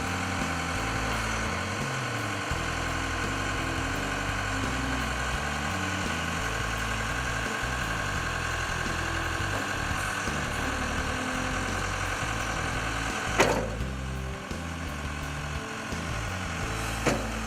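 Case 1840 skid steer's diesel engine running steadily at idle, with a sharp clank about thirteen seconds in and a smaller one near the end.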